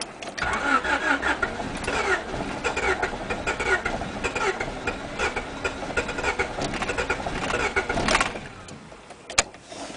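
Honda Civic D16Z6 four-cylinder engine cranking on the starter for about eight seconds without catching, a crank-but-no-start condition. The cranking stops abruptly, and a single sharp click follows about a second later.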